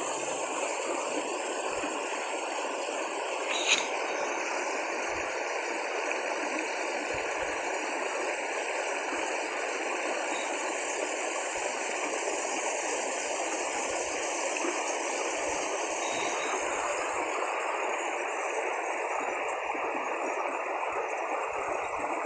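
Small waterfall cascades and a stream running over limestone rocks: a steady, even rush of water, with a brief click about four seconds in.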